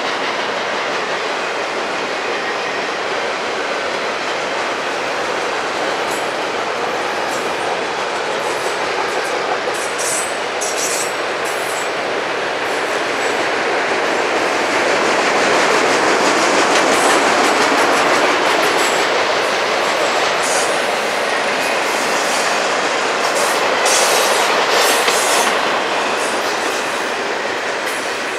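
Freight train cars rolling past at speed: a steady rush and clatter of steel wheels on rail, swelling louder in the middle as the autorack cars go by, with short high rattles and squeaks here and there.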